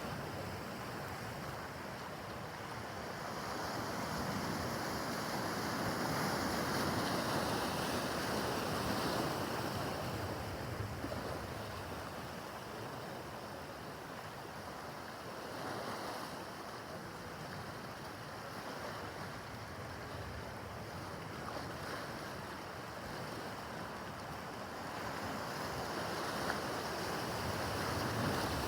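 Rough harbor water: waves washing and breaking in an even rush that swells louder a few seconds in and again near the end, with wind buffeting the microphone.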